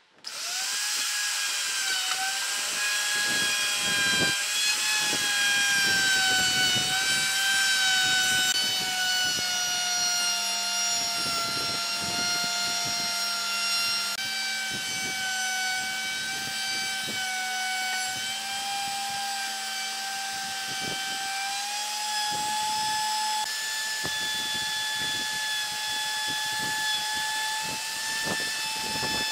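An electric power tool's motor switches on and runs with a steady high whine, its pitch sagging slowly and then stepping back up twice. Short knocks come through underneath.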